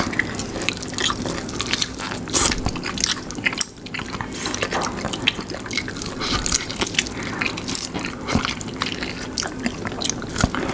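Close-miked mouth sounds of people eating fried chicken drenched in hot sauce: wet chewing and lip smacking, made up of many short clicks.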